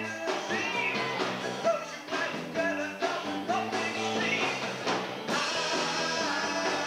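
Rock band playing live, with drums, a bass line, electric guitar and singing, captured on a VHS camcorder's microphone.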